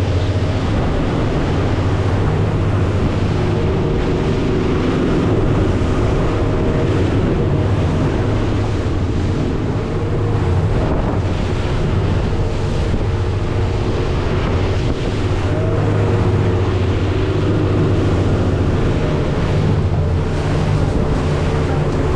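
Motorboat engine running steadily with a deep hum, mixed with wind buffeting the microphone and the rush of water past the hull.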